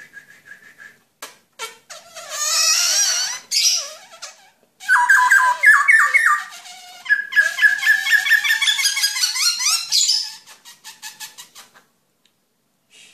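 Caged black-throated laughingthrush (Garrulax chinensis) singing a loud, varied song of squeaky whistled phrases and fast runs of repeated notes, falling quiet near the end.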